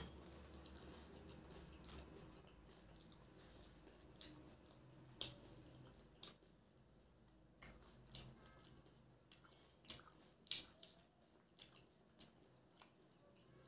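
Faint wet chewing of a pani puri, with scattered short mouth clicks and smacks.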